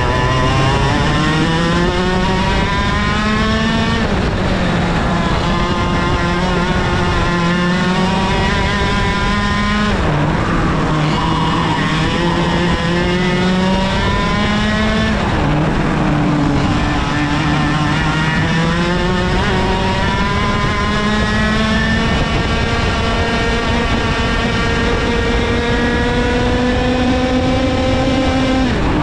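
IAME KA100 100cc two-stroke kart engine at race pace. Its pitch climbs on each straight and drops sharply as the throttle comes off for corners about 4, 10 and 15 seconds in, then climbs slowly through a long stretch.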